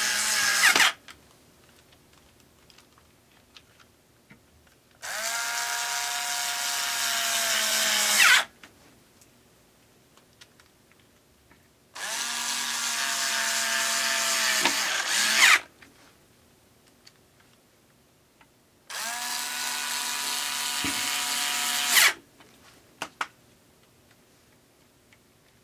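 Small cordless electric screwdriver driving a B&W speaker woofer's mounting screws home. Its motor whines in separate runs: one ends about a second in, then three runs of about three and a half seconds each. Each run spins up, grows louder towards its end as the screw seats, and stops sharply.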